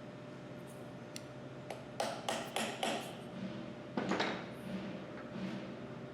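Light metal-on-metal tapping and clinking of tools on the pump's main drive bearing as its lock ring is fitted: a few small ticks, then a quick run of four strikes about two seconds in and another strike about four seconds in.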